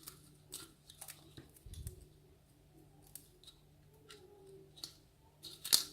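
Small metal clicks and ticks of lock-picking shims and tools being handled and sorted, with a louder clink near the end.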